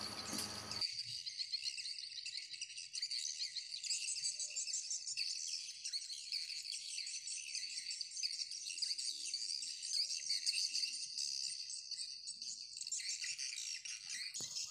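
Insects chirping in a dense, high-pitched chorus, with no breaks.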